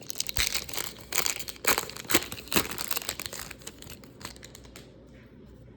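Wrapper of a 2003 Upper Deck baseball card pack being torn open and crinkled, the rustling thinning out and stopping about four and a half seconds in.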